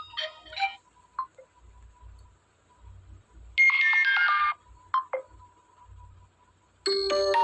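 Android phone notification tones played as previews, one after another, as different sounds are selected in the sound list: a short chime at the start, a run of falling notes about three and a half seconds in lasting about a second, and another multi-note tone starting near the end.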